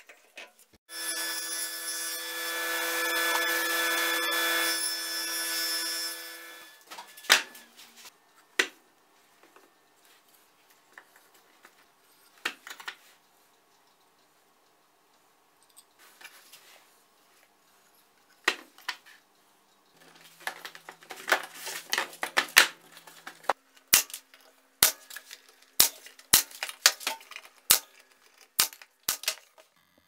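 Table saw blade spinning and ripping a thin strip from a larch board, starting about a second in and winding down about six seconds in. After it come scattered knocks and clicks of wood being handled on the saw table, and near the end a run of sharp clicks.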